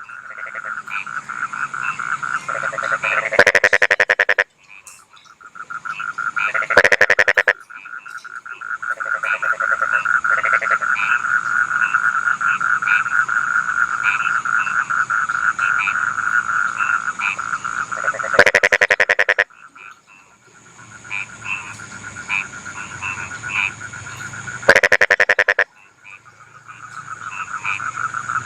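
Rice-field frogs calling in a chorus: a fast pulsing trill that builds up in loudness, breaks off, and starts again several times. About four louder, short calls cut through it.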